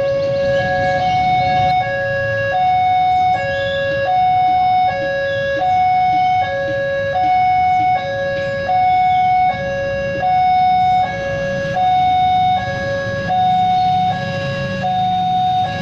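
Railway level-crossing warning alarm sounding a steady two-tone hi-lo signal, switching pitch about every 0.8 s, warning of an approaching train. A low rumble runs underneath and grows near the end.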